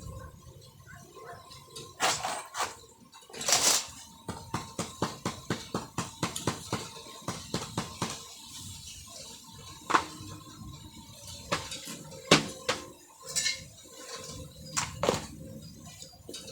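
Metal clinking and knocking: scattered sharp knocks, with a quick run of light taps about four a second a few seconds in.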